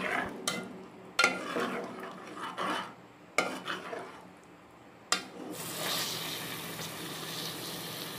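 A metal ladle scrapes and knocks against a metal karahi as chicken in a yogurt-tomato masala is stirred, with sharp clanks at intervals. A little past halfway a steady sizzling of the masala frying in oil takes over.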